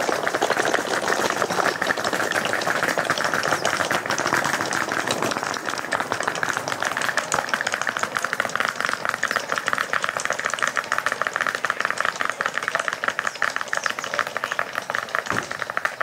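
Wheeled suitcases rolling over brick paving, their small wheels rattling in a fast, continuous clatter.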